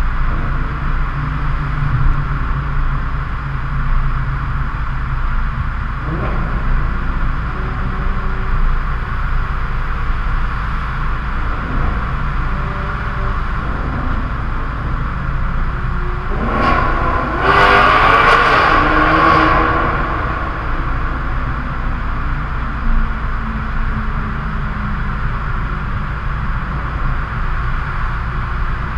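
Maserati GranTurismo S V8 exhaust in a road tunnel, over steady low road rumble. About two-thirds of the way through comes one loud burst of hard acceleration, lasting around three seconds and rising in pitch.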